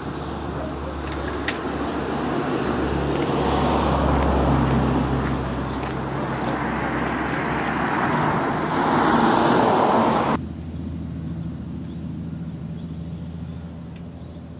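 Road traffic noise: passing cars swell up twice, then the sound cuts off abruptly about ten seconds in, leaving a quieter steady outdoor background.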